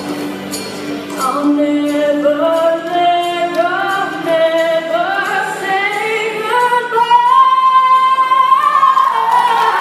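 Voices singing the closing phrase of a song in long held notes, the melody stepping upward to a final sustained note near the end.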